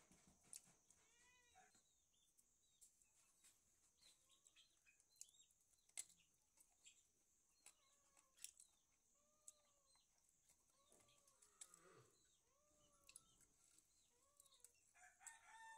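Faint animal calls, short rise-and-fall notes repeating roughly once a second, over a steady high hiss, with a few sharp clicks.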